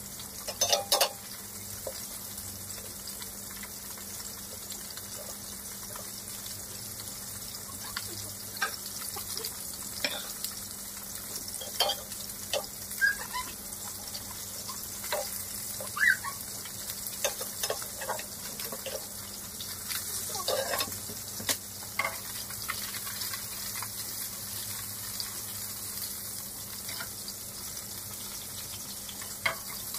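Whole fish shallow-frying in hot oil in a metal wok: a steady sizzle, with a metal spatula scraping and clinking against the wok now and then, most often through the middle stretch.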